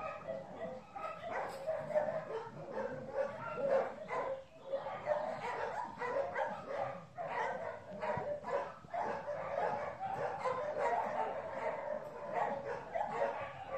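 Dogs barking and yipping, the short barks coming thick and overlapping with no real pause.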